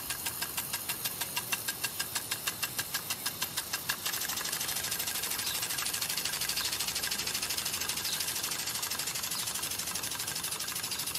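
Impact lawn sprinkler ticking over the hiss of its spray, about four sharp ticks a second, changing about four seconds in to a faster, denser ticking.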